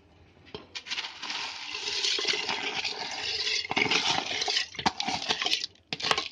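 Soaked whole black urad (black gram) poured with its water from a plastic bowl into a pressure cooker of water, and pushed out with a steel spoon: a continuous splashing rush for about five seconds, with clicks of the spoon against the bowl. The rush stops near the end, leaving a few separate clicks.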